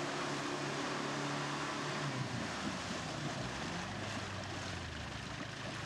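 Land Rover Defender engine working hard under load, its note rising and falling, as the truck ploughs through a deep muddy rut, with its wheels churning and splashing muddy water.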